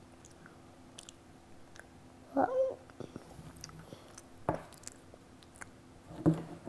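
A hollow chocolate egg being handled and split open: small taps and clicks of the chocolate shell, with a knock about halfway through. About two and a half seconds in, a brief squeaky vocal sound from a child.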